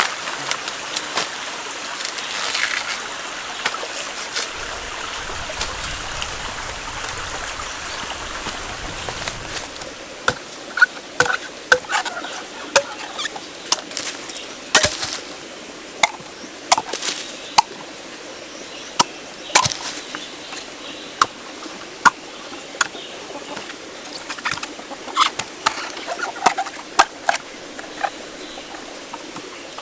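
Husks being torn and stripped off fresh bamboo shoots, a rustling, tearing sound. About ten seconds in it gives way to a knife cutting into the peeled shoots: sharp, irregular cuts, often less than a second apart.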